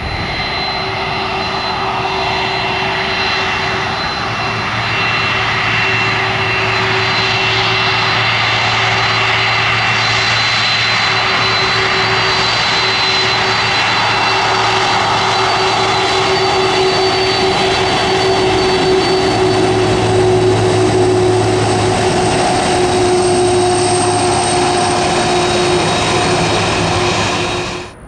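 Airliner jet engines running loud and steady, a broad rush with a high whine held over it, cutting off abruptly near the end.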